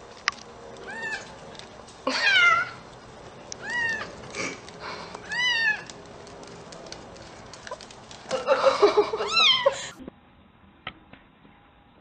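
Young kitten meowing repeatedly in thin, high mews, each rising then falling in pitch, five times over about ten seconds, with a short burst of noise just before the last mew.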